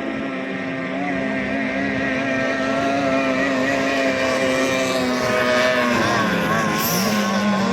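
Racing boats' 18 hp outboard motors running at high revs, two engine notes heard together and slowly growing louder. One note dips about six seconds in and then picks up again.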